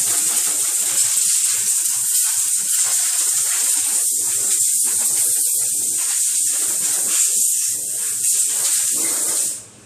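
Steady hiss of compressed air from an air nozzle, starting abruptly and cutting off suddenly near the end.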